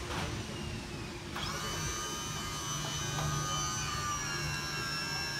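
Electric tarp system motor on a side dump trailer, starting about a second and a half in and running steadily with a whine and a low hum as it drives the tarp arm.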